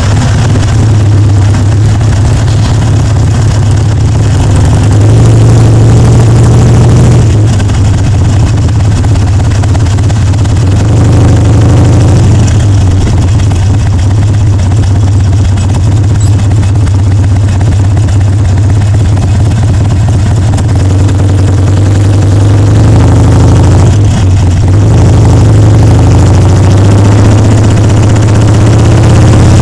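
Harley-Davidson Sportster Seventy-Two's air-cooled V-twin exhaust running loud under way, with a deep steady rumble and wind noise on the microphone. The engine note shifts a few times as the throttle changes.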